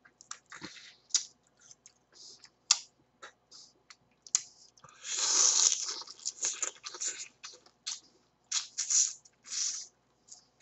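Close-up mouth sounds of eating cooked flower crab: a run of short, sharp wet clicks and crunches as the shell and legs are bitten and sucked for meat, with a longer sucking slurp about five seconds in.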